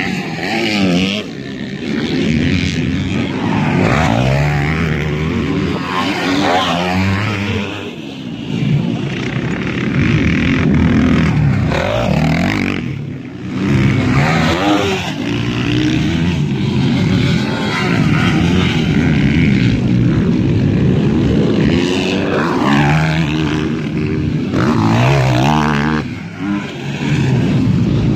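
Motocross dirt bikes racing on the track, several engines revving up and down through the gears and overlapping, with a brief lull about halfway through.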